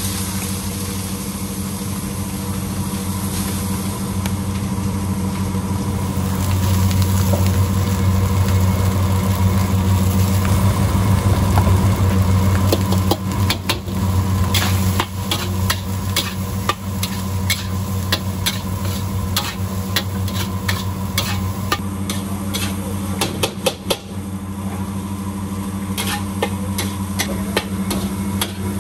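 A metal ladle clacking and scraping against a carbon-steel wok as rice is stir-fried over a gas burner, in quick, uneven strikes that begin about halfway through. Under it runs a steady low hum of the stove and kitchen.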